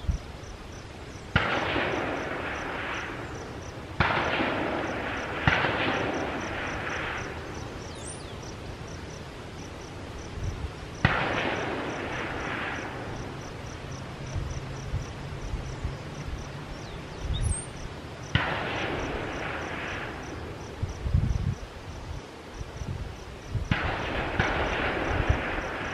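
Six rifle shots from the firing line, irregularly spaced (about 1, 4, 5.5, 11, 18 and 24 seconds in), each a sharp crack followed by a rolling echo that fades over a second or two.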